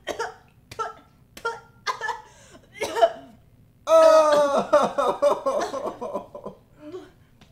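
A person coughing in short bursts, about one a second, then about four seconds in a long wavering groan lasting a couple of seconds.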